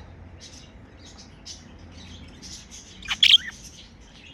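Budgerigars chattering softly in quick, short chirps, with one loud, sharp call about three seconds in.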